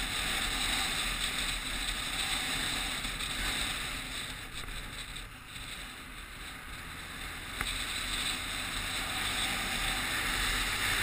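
Steady rush of wind over an action camera's microphone while riding along a road, mixed with passing car traffic. It eases off for a few seconds in the middle, and there is a single sharp click about two-thirds of the way through.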